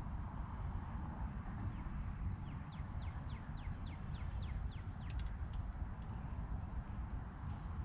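A bird calls a run of about ten quick notes, each sliding down in pitch, starting about two seconds in, over a steady low rumble.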